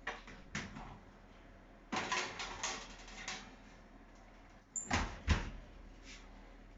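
Oven door being opened and a metal baking tray of biscuits slid in, with knocks and clatter, then two loud thumps about five seconds in, the door being shut.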